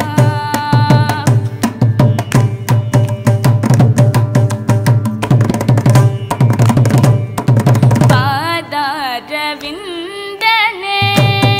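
Carnatic music: fast hand-drum strokes with a melodic line over them. About eight seconds in the drumming stops and the melody goes on alone with ornamented, sliding pitch; the drums come back near the end.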